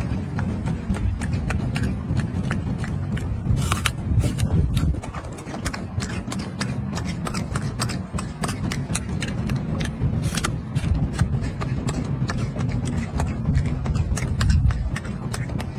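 Steady wind rumble on the microphone, overlaid by many irregular sharp clicks, several a second.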